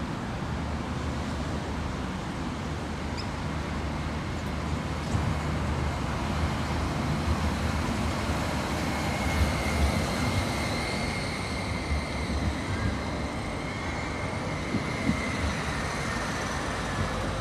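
CAF Urbos light rail tram running past on street track: a steady rumble of wheels and running gear with road traffic behind it. A thin high whine comes in about nine seconds in and holds for several seconds.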